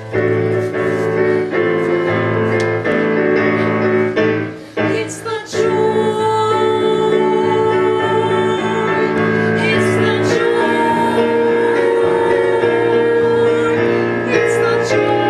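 Show-tune music: piano accompaniment with women singing, holding long notes in the second half. There is a short lull about five seconds in.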